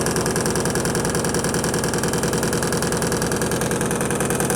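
Electrolux Perfect Wash 16 kg washing machine in its spin cycle, running loud with a fast, even pulsing as the machine shakes. It will not stop making noise through the spin.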